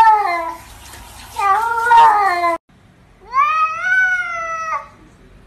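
Domestic cat meowing three times in long, drawn-out meows. The last meow rises in pitch and then drops away at its end.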